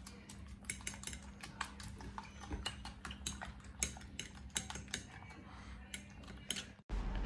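A metal fork beating eggs with chopped onion and coriander in a ceramic plate: quick, irregular clicks of the fork striking the plate, about four or five a second, stopping abruptly near the end.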